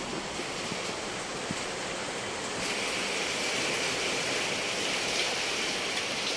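Steady rushing noise with no distinct events, growing slightly brighter about two and a half seconds in.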